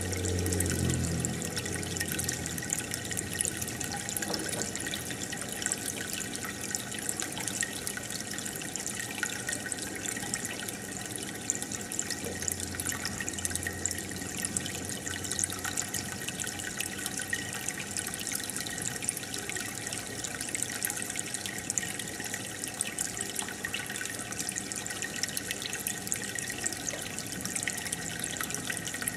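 Aquarium water bubbling and trickling steadily as a stream of air bubbles rises through the tank, with many small fine pops.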